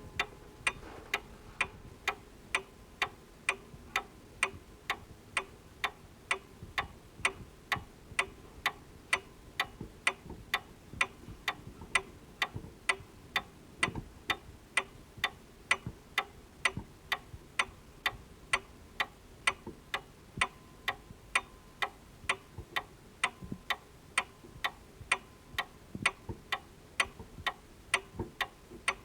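Table clock ticking steadily, about two ticks a second.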